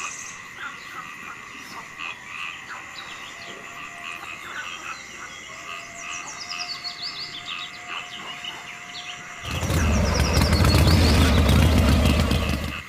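Frogs and birds calling over a steady high-pitched tone. About nine and a half seconds in, an engine starts up loudly, runs for about three seconds, then cuts off suddenly.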